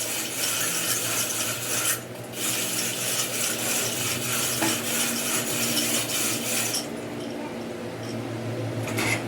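Abrasive rubbing on metal, like a file or abrasive paper working a part, in two long strokes-worth of scraping with a short break about two seconds in, stopping about seven seconds in; a steady machine hum runs underneath.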